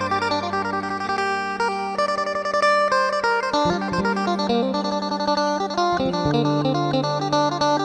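Background music led by guitar, with sustained notes over a changing bass line; it cuts off suddenly at the end.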